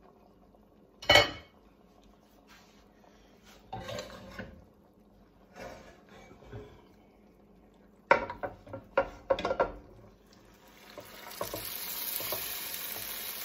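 Cookware clatter: a sharp clank about a second in, then scattered knocks and a quick run of clinks from a glass baking dish and spoon against an enameled cast-iron Dutch oven. Near the end a steady sizzling hiss builds as roasted cherry tomatoes are scraped from the glass dish into the hot bean stew.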